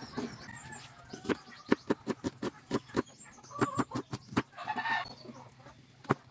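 Chef's knife chopping onion and garlic on a cutting board: irregular sharp knocks of the blade on the board, a few a second, with a pause near the end. A short animal call sounds in the background about four and a half seconds in.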